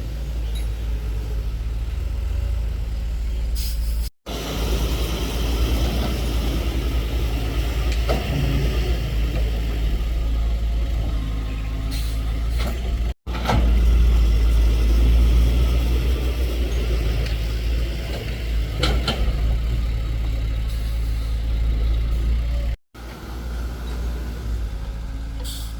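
Excavator's diesel engine running steadily with heavy low rumble while it works, with a few short metallic clanks. The sound drops out abruptly three times at edits.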